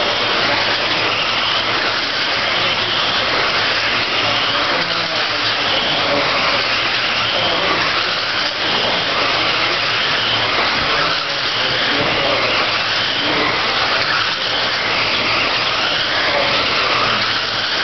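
A pack of electric radio-controlled dirt oval race cars with 13.5-turn brushless motors running laps together, making a steady whirring din of motors and tyres on the dirt.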